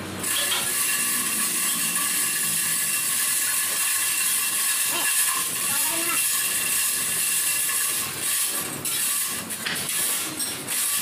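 3-ton manual chain block hoisting a steel pipe: the chain running through the block with the ratchet pawl clicking in a dense, continuous clatter that turns more broken near the end.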